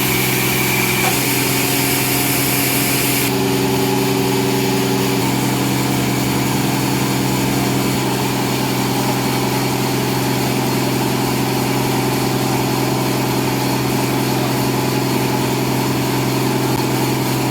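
A sawmill's engine-driven saw running steadily at a constant speed, with a high hiss over it for the first three seconds.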